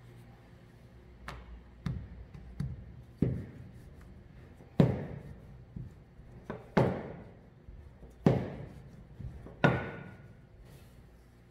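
Wooden rolling pin knocking on a countertop while dough is rolled out thin: about eight sharp knocks, irregularly spaced a second or two apart.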